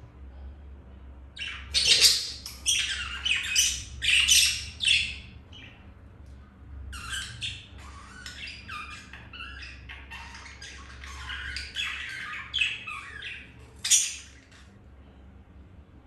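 Budgerigars squawking and chattering in two runs of quick calls: one starting about a second in, and a longer one from about halfway. The run ends with a sharp, loud squawk near the end.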